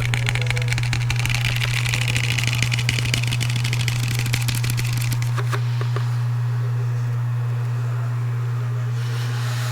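Close-miked rapid scratching and tapping on a handled object for about five and a half seconds, then a few separate clicks, then quieter handling. A steady low hum runs underneath throughout.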